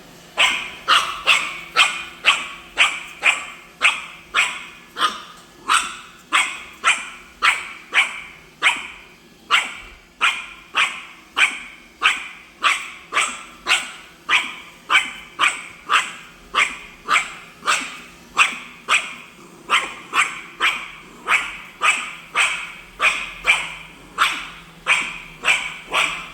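Yorkshire terrier barking nonstop at a robot vacuum: sharp, high-pitched barks at an even pace of about two a second. A faint steady hum of the robot vacuum runs underneath.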